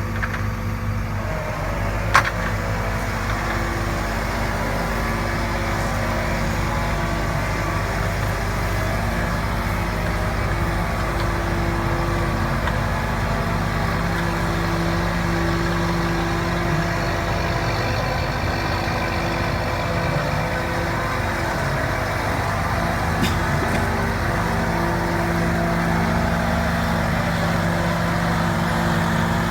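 Caterpillar AP655D asphalt paver's diesel engine running steadily, with a higher hum that comes and goes as the hydraulics are worked. A single sharp click about two seconds in.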